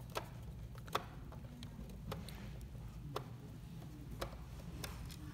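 Half a dozen light, sharp clicks about a second apart as a hand screwdriver works the screws of a plastic projector housing, over a low steady hum.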